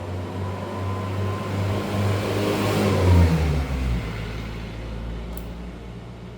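A motor vehicle's engine passing by. It grows louder to a peak about three seconds in, then fades with a drop in pitch.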